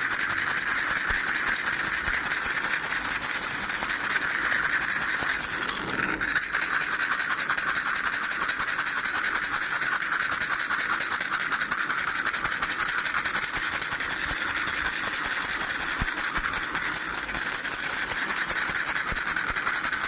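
A baby rattle shaken rapidly and continuously, making a dense, steady rattle that breaks off briefly about six seconds in.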